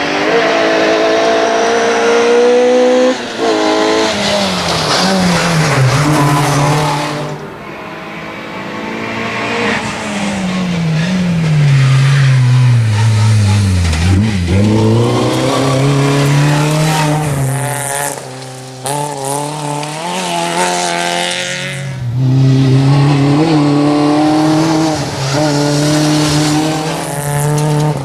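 Opel Corsa GSi rally car's four-cylinder engine revving hard on a stage. Its pitch climbs and drops again and again through gear changes and lifts, with a deep fall and recovery about halfway through.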